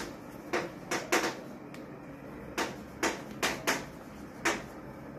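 Chalk writing on a chalkboard: a run of irregular, sharp taps and clicks as each letter is stroked onto the board.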